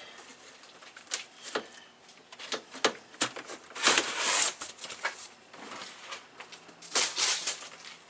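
Hand-work on a radiator and cooling-fan assembly in a car's engine bay: scattered clicks and knocks of parts being handled and fitted, with louder scraping rustles about four seconds in and again about seven seconds in.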